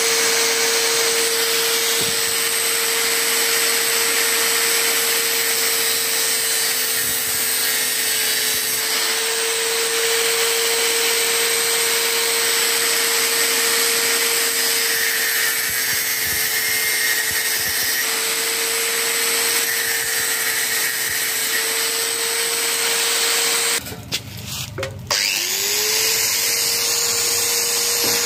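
Bosch GWS 600 angle grinder running steadily at full speed: a constant high motor whine over a loud hiss. Near the end it breaks off briefly, then spins back up with a rising whine.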